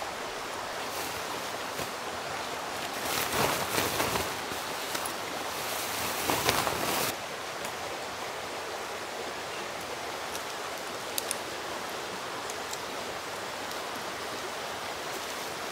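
Steady outdoor rushing hiss, with two louder bouts of nylon tent fabric rustling as a backpacking tent is taken down, about three and six seconds in, and a couple of faint clicks near the eleven-second mark.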